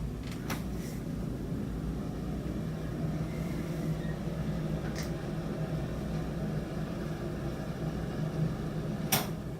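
Steady low hum of room noise with a few scattered sharp clicks or knocks; the sharpest knock comes near the end.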